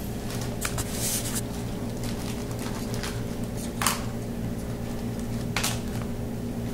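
Steady low room hum, like ventilation, with four brief rustling or handling noises; the sharpest is a click a little before four seconds in.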